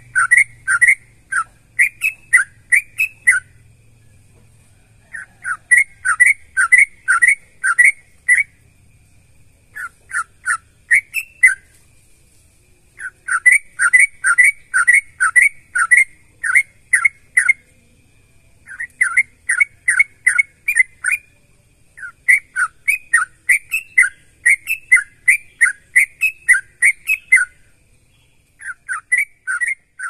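Yellow-vented bulbul (trucukan) singing: phrases of short whistled notes, about three a second, in runs of a few seconds separated by short pauses.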